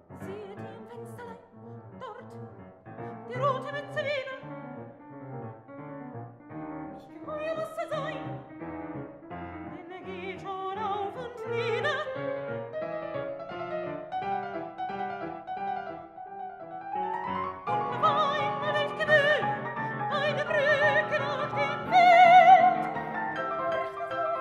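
Soprano singing a German art song with vibrato, accompanied by a grand piano. The piano part grows louder and denser in the second half.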